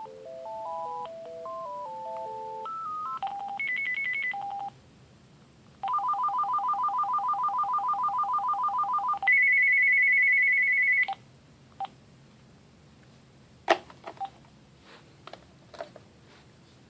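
Cordless phone handset playing a run of electronic ringtones: a simple two-part melody, a few short warbling beeps, then after a brief pause a fast trilling ring that switches to a higher, louder trill and cuts off about eleven seconds in. A few sharp clicks follow.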